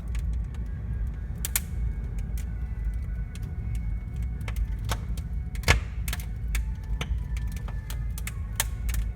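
Wood fire crackling in a fireplace, a freshly added log popping at irregular moments, the sharpest pop about halfway through, over a steady low rumble.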